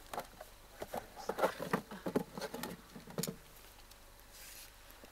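Rustling and scratching of a hessian sack being handled around an animal: a run of quick, irregular scrapes and clicks that dies away about two-thirds of the way through.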